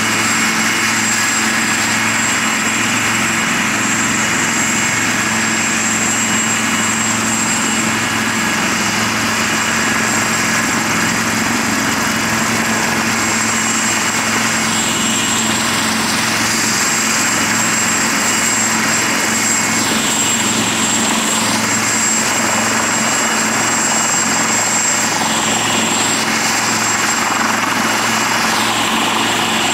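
AW159 Wildcat helicopter running on the ground with its rotor turning during a rotors-running fast refuel. Its turbines give a steady high whine over the beat of the rotor.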